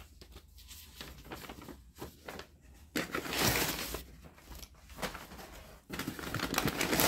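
Packing paper rustling and crinkling as it is pulled out of a shipping box by hand, in uneven bursts that are loudest about three seconds and six seconds in.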